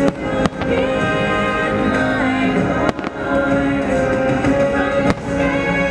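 Fireworks bursting with four sharp bangs (right at the start, about half a second in, near three seconds and about five seconds in) over loud, sustained music from the fireworks show's score.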